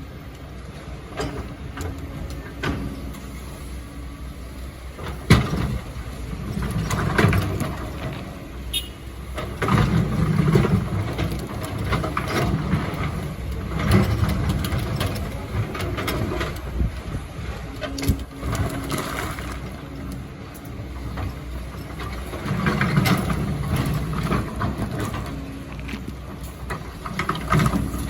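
Hydraulic excavator's diesel engine running steadily, surging louder several times as it works under load, with sharp knocks and clanks of the bucket against rock and sand.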